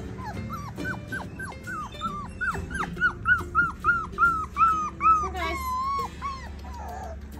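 A four-week-old Bernedoodle puppy whining in a rapid run of short high-pitched whines, about three or four a second, ending in a longer wavering whine about five and a half seconds in.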